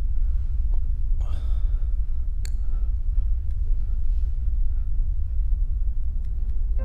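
A steady low rumble, with a faint breathy sigh about a second in and a small click a little later.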